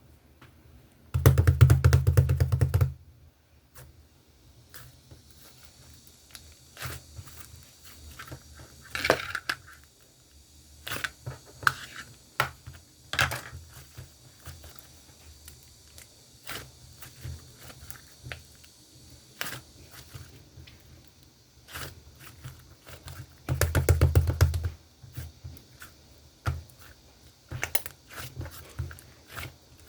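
Hands squishing and pressing slime: scattered sticky clicks and small pops, with two louder spells of rapid crackling, one just after the start and one about three-quarters of the way through.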